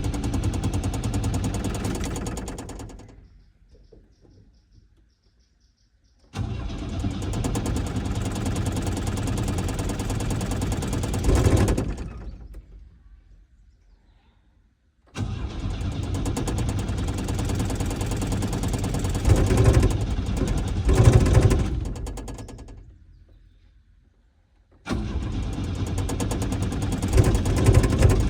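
Chevrolet Chevette's starter cranking the cold engine in four separate attempts, each several seconds long with short pauses between, the engine failing to start. Each attempt cuts in abruptly and dies away over a second or two.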